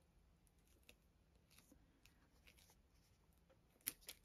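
Near silence with faint paper rustles and small taps as fingers press and handle a cardstock pocket embellishment, and a sharper click near the end.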